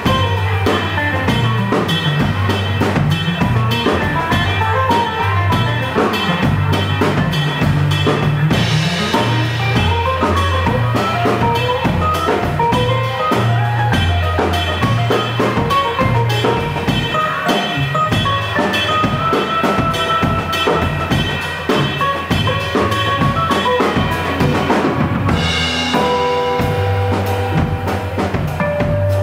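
Live instrumental music from an acoustic guitar, violin and drum-kit trio, with the drums playing a busy beat under fast melodic lines. About 25 seconds in, a cymbal wash comes and the music settles into held notes.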